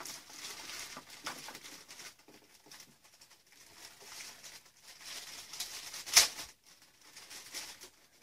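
Thin plastic packaging bag crinkling and rustling in the hands as it is handled and opened, with one sharp, much louder snap about six seconds in.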